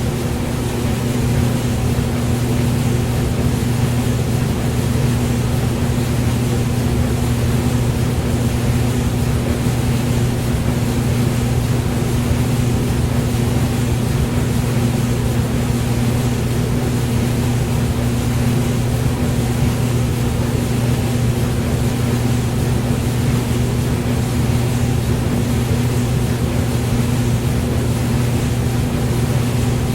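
Hair dryer running continuously: a steady rush of blown air over a low, even motor hum.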